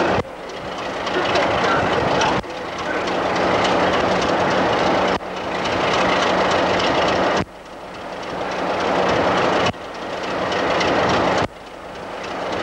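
Class 33 diesel locomotive's engine running while standing at the platform: a loud, noisy drone with a steady hum. It drops away sharply about every two seconds and swells back up each time.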